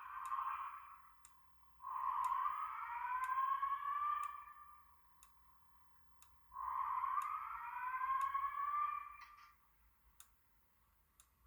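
EST Genesis fire alarm speaker sounding a whoop evacuation tone twice: each whoop rises in pitch for about two and a half seconds, with a quiet gap after it. This is the repeating alarm-tone part of the Simplex 4003EC voice evacuation message. Faint ticks come about once a second throughout.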